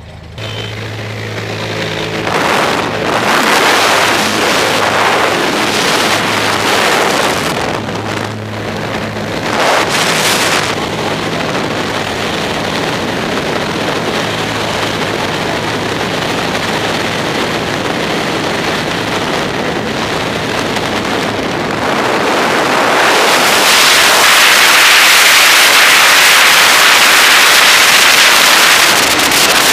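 A propeller aircraft's engine runs steadily under rushing air for about ten seconds. The engine then drops away, leaving only the loud, steady rush of freefall wind on the microphone, which grows stronger and brighter a little after twenty seconds in.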